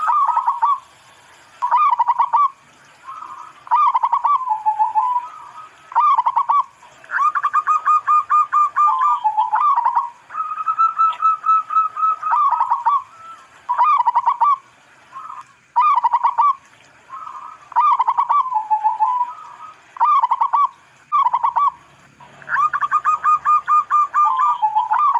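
Zebra dove cooing over and over: phrases of rapid staccato coos at a steady pitch, many ending in a lower, dipping note, with short pauses between phrases.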